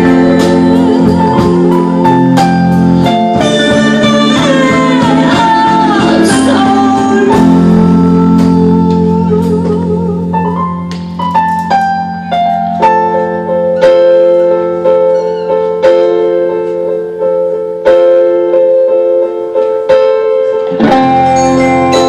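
Live band playing a song: a woman singing over keyboard, cello and guitars. About eleven seconds in, the music thins to separate struck notes that ring on.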